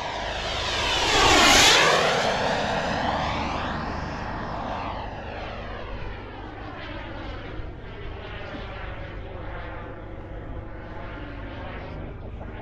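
Kingtech K102 model jet turbine in a model MB-339 jet, running in flight. It swells to a close pass about a second and a half in, its tone sweeping as it goes by, then fades to a steadier, fainter sound as the jet flies off.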